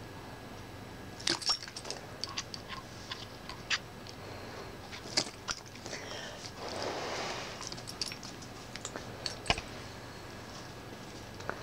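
Small terrier snapping and biting at soap bubbles: scattered sharp clicks of its jaws, with a brief hiss about seven seconds in.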